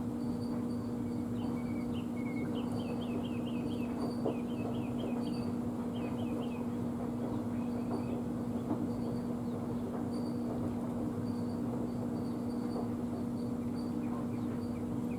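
A steady low hum with small birds chirping over it. The birds give quick runs of short falling chirps in the first half, and a faint high peep repeats throughout.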